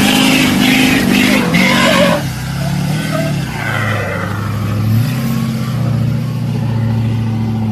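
Duramax V8 turbo-diesel pickup engine revving hard with its wheels spinning, its pitch wavering for about the first two seconds before it settles into a lower, steadier drone.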